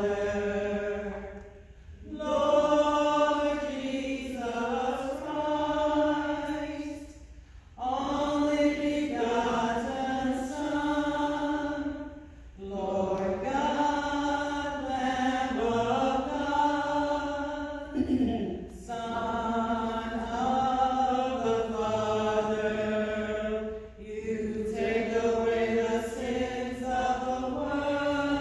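Voices singing a chant-like liturgical setting in phrases of about five seconds, with short breaths between phrases.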